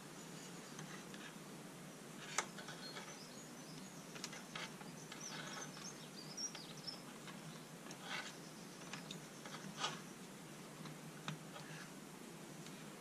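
Light clicks and clatter of carbon rods and a wire clip being handled at the tub, the sharpest click a couple of seconds in, over a steady low hiss, with a few faint high chirps.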